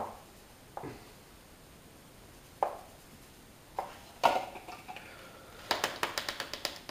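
A spoon scraping and tapping inside a kitchen strainer, pushing clumpy powder through the mesh into a plastic container. A few separate knocks come first, then from about six seconds in a quick run of scrapes, several a second.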